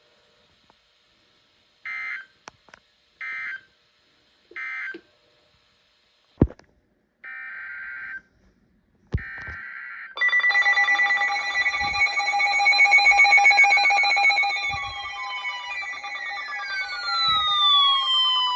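NOAA Weather Radio data tones: three short bursts of the end-of-message code closing a Tornado Watch, then longer header bursts of a new alert, and from about ten seconds in several weather alert radios' alarms going off together, a loud layered beeping with tones gliding downward.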